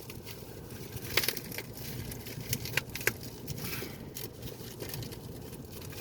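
Plastic packaging being handled and crinkled, with a few sharp clicks and crackles, over a steady low hum.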